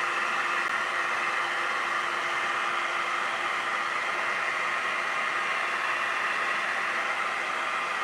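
Hot air brush (blow-dryer brush) running steadily: a rush of blown air with a faint steady motor hum under it.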